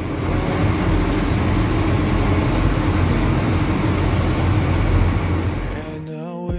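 Diesel engines of a Baja Aqua 54 motor yacht running steadily under way, a deep rumble mixed with wind and water noise. Music cuts in near the end.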